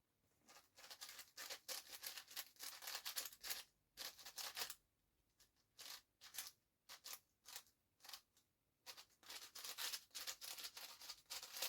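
New magnetic MoYu 7x7 speedcube with a core magnet being turned by hand: runs of quick plastic clicking and scraping as the layers turn. A dense run for the first few seconds, a short pause, scattered turns, then another dense run near the end.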